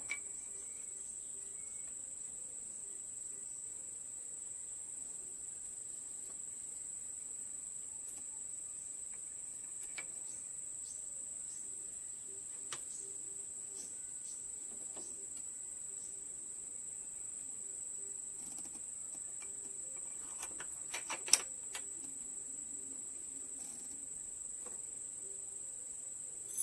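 Steady, high-pitched chirring of crickets or similar insects, with a few scattered sharp clicks and a short cluster of louder clicks about five seconds before the end.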